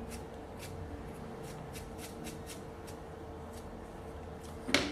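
Light scratchy brushing strokes, about three or four a second, clearing metal filings off a freshly cut key, with one sharper click near the end.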